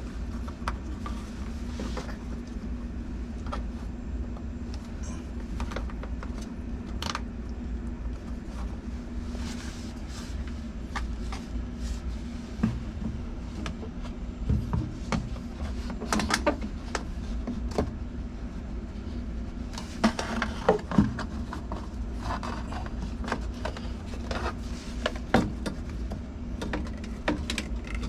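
A steady low hum with scattered clicks and knocks on top, coming in small clusters around the middle and again near the end, like parts or tools being handled during repair work.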